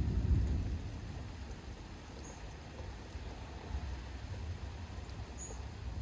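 Distant thunder rumbling, dying away within the first second or so into a low steady rumble. A bird gives two short high chirps, about two and five seconds in.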